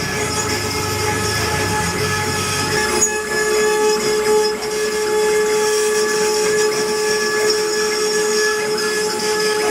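CNC wood-carving router's spindle running with a steady whine over the hiss of the bit cutting wood; a low rumble underneath drops away about three seconds in.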